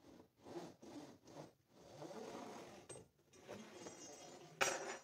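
A long steel rod being drawn out through holes in a row of plywood partitions, scraping in a series of short pulls, with a louder, sharper scrape near the end.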